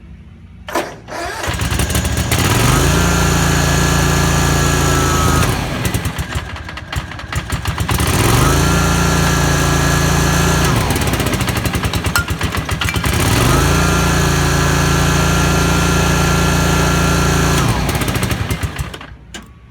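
Walk-behind mower engine starting and running, revved up and back down three times with a whine over it while at speed. The deck is running without blades as a test of the freshly installed spindles and belt. The engine shuts off near the end.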